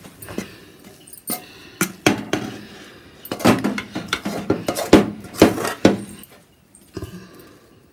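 A metal ladle knocking and scraping against a metal pan as thick burfi mixture is tipped out onto a steel plate: a run of sharp metal knocks and scrapes, busiest and loudest in the middle.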